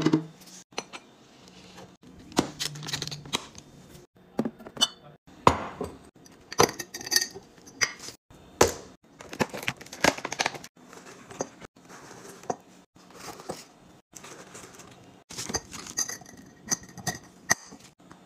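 A run of separate clinks, taps and knocks from glass storage jars and lids being handled and set down on a countertop, with cardboard and paper rustling as a tea box is opened and a sheet of labels unfolded.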